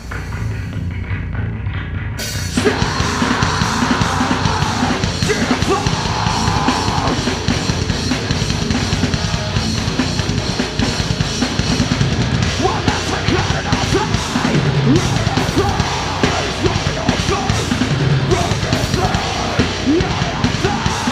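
Deathcore/djent band playing live: a pounding drum kit with fast bass drum, under distorted down-tuned guitars and bass. For the first two seconds or so the cymbals and high end drop out, then the full band crashes back in.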